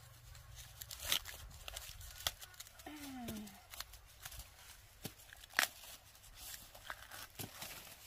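Green husks being torn and stripped by hand from fresh ears of corn: irregular rustling tears and snaps, the sharpest about five and a half seconds in. A short vocal sound comes about three seconds in.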